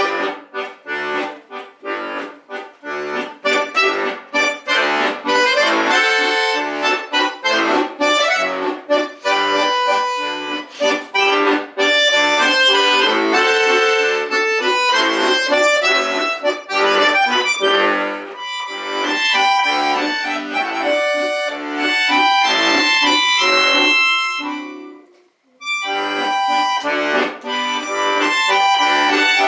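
An accordion playing a lively tune in quick runs of notes. The music stops briefly about 25 seconds in, then starts again.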